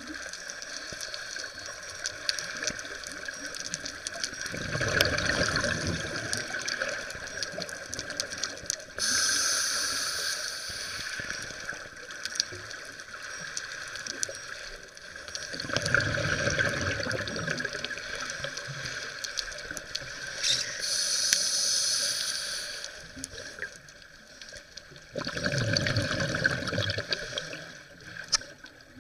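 Underwater sound of a scuba diver breathing through a regulator: a bubbly rumble of exhaled air comes about every ten seconds, with shorter, brighter hisses in between, over a steady watery hiss.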